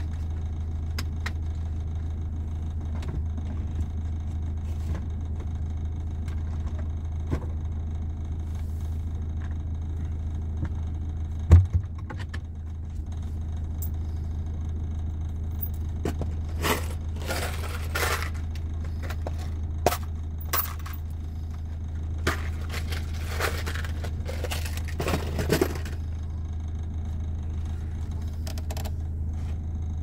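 Van engine idling with a steady low hum, under intermittent scraping and clattering of items being handled at the sink, with one sharp knock about eleven seconds in.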